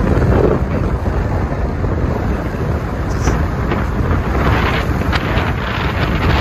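Wind buffeting the microphone over the steady rush of a car driving along at road speed.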